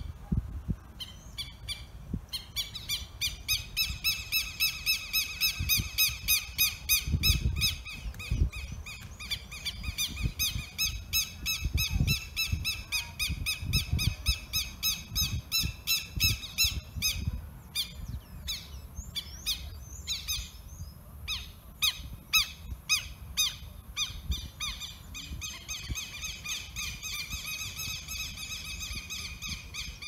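A bird calling in a long, fast run of identical repeated notes, several a second. About halfway through it breaks into a looser, irregular pattern, and the steady run comes back near the end.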